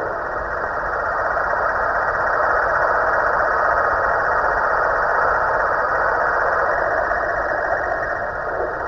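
Snoring sound from a Halloween pumpkin prop: a continuous noise with no pauses, easing slightly near the end.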